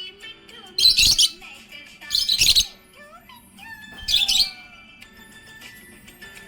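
Small pet parrot giving three loud, harsh, high-pitched chirps about a second and a half apart, with softer twittering between them.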